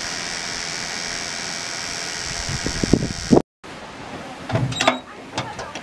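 Miniature live-steam locomotive standing in steam, with a steady hiss and a few low puffs near three seconds. After a brief break, the locomotive is running along the track with irregular knocks and clanks.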